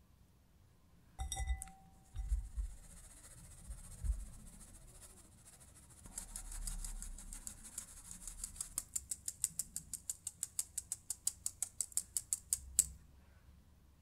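A stainless mesh sieve full of flour, cocoa and almond powder being shaken over a glass bowl to sift it. There is a glassy clink and a few soft knocks, then a soft hiss of powder. After that comes a fast, even tapping of about nine taps a second, ending with one sharper tap.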